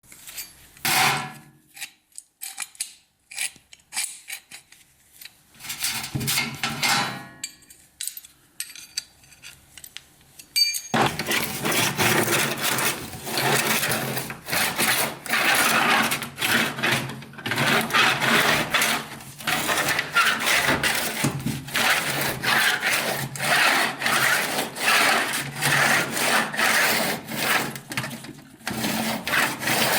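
Scattered scrapes and knocks, then from about eleven seconds in a continuous run of rapid, repeated rasping strokes, like sawing or filing.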